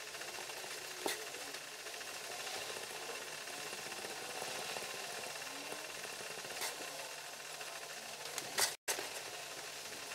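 Steady faint hiss with a few light clicks and scratches as a pyrography pen's hot tip is worked over a pine board. The sound cuts out completely for an instant near the end.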